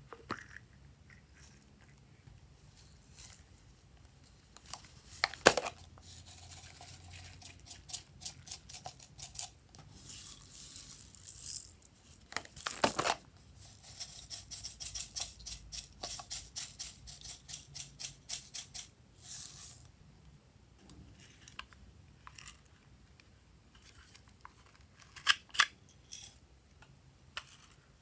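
Small plastic containers clicking and snapping as they are opened and handled, and sequins and glitter shaken out of them onto slime in plastic trays. There is a run of quick rattling ticks in the middle, and a few louder snaps about five seconds in, near the middle, and near the end.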